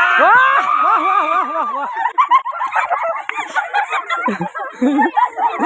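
Group of young men and women shouting, cheering and shrieking all at once over a tug of war. One long, high held shout runs through the first couple of seconds, then many voices overlap.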